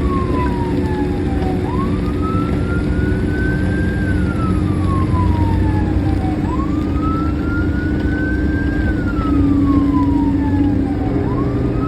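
Fire engine's siren on a slow wail, its pitch rising quickly and then falling slowly, repeating about every five seconds, over a steady low engine rumble.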